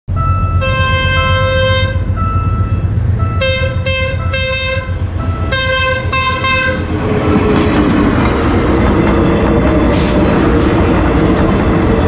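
A train horn sounding one long blast and then two pairs of shorter blasts. After that comes the steady rumble of the train running.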